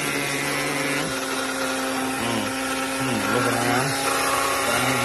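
Small electric blade coffee grinder running steadily, grinding coffee beans, its motor pitch dipping and recovering twice about midway.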